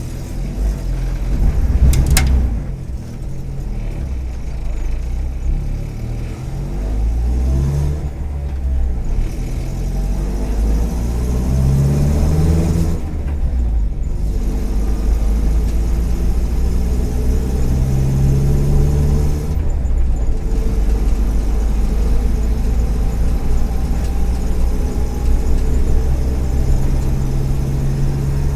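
2009 Volkswagen Kombi's EA111 1.4-litre four-cylinder engine running while driving. Its pitch climbs under acceleration and drops back at gear changes several times, then holds steadier at cruise. There is a sharp click about two seconds in. The owner puts the engine's occasional misfires down to worn spark plug wires and ignition coil, and its other noises to a probably cracked exhaust manifold and rattling trim.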